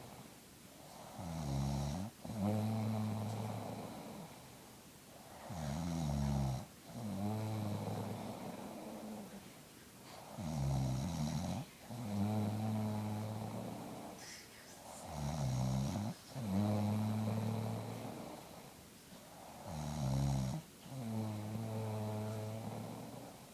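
A grandmother snoring in deep sleep, one loud snore about every four and a half seconds. Each breath is a short sound bending in pitch that breaks off abruptly, followed by a longer, steady low snore that fades away.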